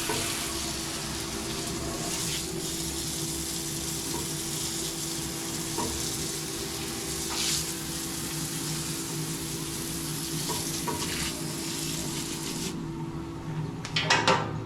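Compressed-air blow gun hissing steadily as it blows coolant and chips off a part inside the CNC mill enclosure. It cuts off about thirteen seconds in. A steady low hum runs underneath, and a short clatter follows near the end.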